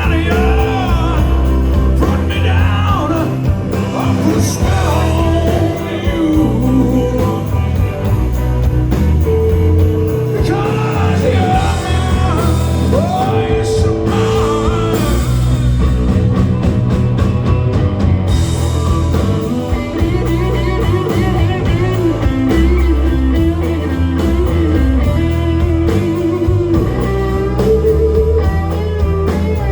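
Rock music with a singing voice over a band with guitar and bass, with a sustained guitar melody toward the end.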